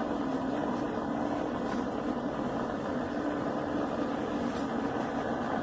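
A steady engine drone with a constant low hum that does not change.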